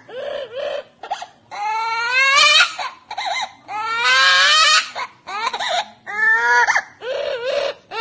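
A pet bird mimicking a baby crying: a run of high wailing cries that rise in pitch. The longest and loudest comes about four seconds in, followed by shorter sobs.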